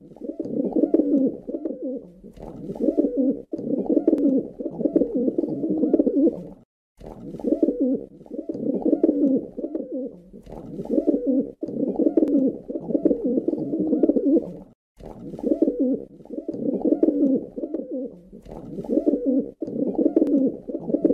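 Pigeons cooing: low, rolling coos repeated one after another, with two short breaks.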